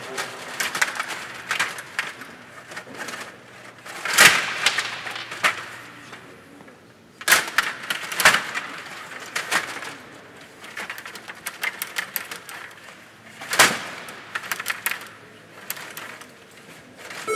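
Stiga table hockey in play: quick clicking and rattling of the metal control rods as they are pushed, pulled and spun, with several sharp knocks as the puck and plastic players hit each other and the boards.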